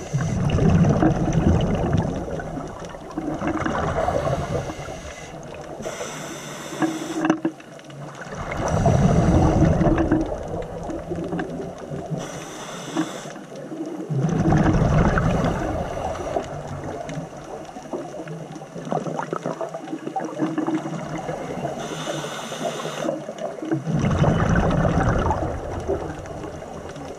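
Scuba regulator breathing underwater: a brief hissing inhale through the demand valve, followed by a long low bubbling exhale, repeating every six to nine seconds.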